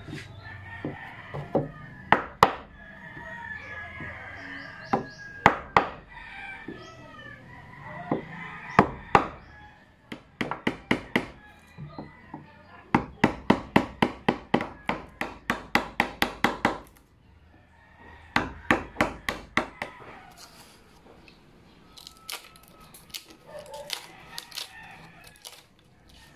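Wooden mallet striking a steel wood chisel to cut a mortise hole in a thick hardwood bench seat. The blows are sharp and come singly at first, then in a fast steady run of about four a second, then lighter taps. Chickens are clucking and a rooster is crowing in the background.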